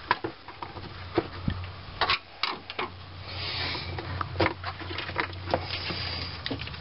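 Scattered clicks, taps and a short scrape of a screwdriver and hands working among hoses and fittings in a pickup's engine bay, over a steady low hum.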